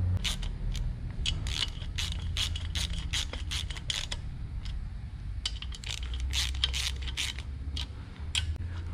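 Ball-handled palm ratchet clicking in quick runs as its socket runs down rocker box bolts by hand, with a pause of about a second and a half midway.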